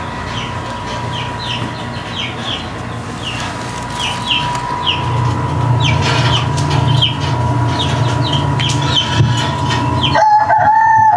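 Roosting chickens peeping, heard through a TV speaker from the coop's livestream: short, high, falling chirps about twice a second. About ten seconds in, dance music suddenly starts as the coop's party lights come on.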